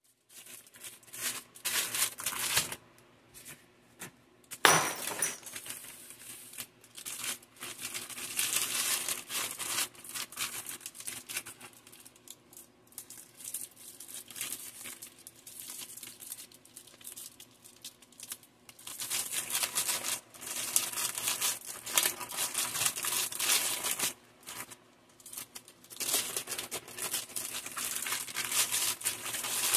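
Clear plastic packaging around sheets of wet/dry sandpaper crinkling and rustling in irregular bursts as gloved hands handle and open it. A single sharp knock about five seconds in is the loudest sound.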